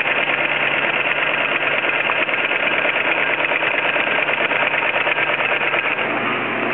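Sailmaster industrial sewing machine running steadily, stitching through heavy mainsail cloth with a rapid, even clatter.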